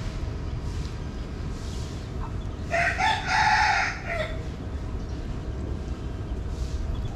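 A rooster crowing once, a call about a second and a half long near the middle, over a steady low rumble.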